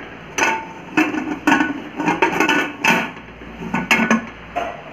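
Aluminium pressure cooker lid being fitted and closed onto the cooker body with no rubber gasket, metal clanking and knocking on metal in about eight knocks, a few of them ringing briefly.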